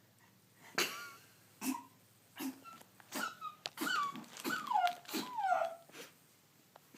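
A woman sneezing over and over in a fit, about seven sneezes in quick succession. Each is a sharp burst trailing off in a high-pitched sound that falls in pitch, and the later ones are the loudest.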